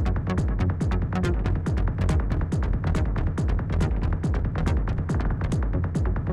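Electronic dance music with a fast, steady beat and heavy bass.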